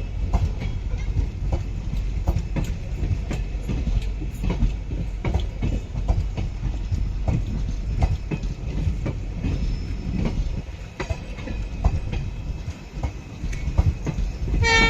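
ICF passenger coaches rolling past at low speed, a steady rumble with wheels clicking over the rail joints. A brief horn note sounds near the end.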